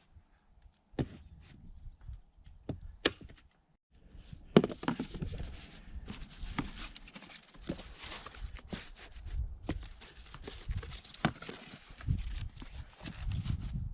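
Work-handling noises: a few sharp knocks, a brief gap, then continual rustling and scraping with frequent knocks and thuds.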